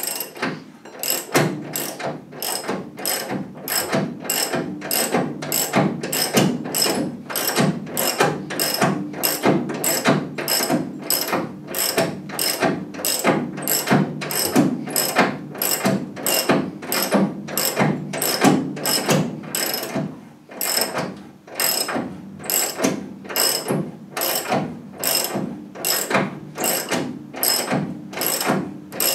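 Hand ratchet wrench worked in steady strokes, about two a second, each stroke a burst of pawl clicks. It is winding a threaded rod that draws the front coil spring up by inches.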